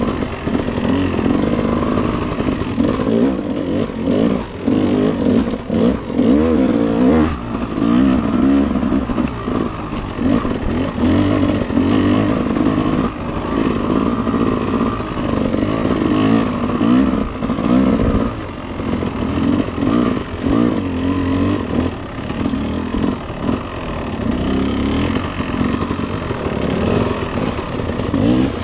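Dirt bike engine being ridden on a trail, its pitch rising and falling over and over as the throttle opens and closes.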